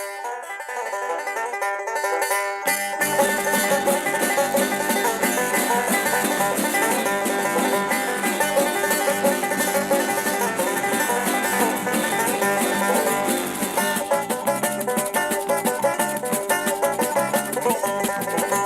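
Background music: fast plucked-string music with a banjo lead in a bluegrass style, with a bass line coming in about three seconds in.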